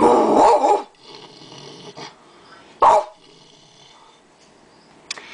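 A woman's vocal impression of a big dog: a loud, growling bark lasting almost a second, then a short, sharp bark about three seconds in.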